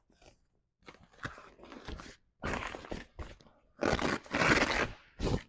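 Heavy zip being pulled along a canvas annex sidewall, with the canvas rustling and scraping against itself. It comes in several uneven rasping strokes, the longest and loudest about four seconds in.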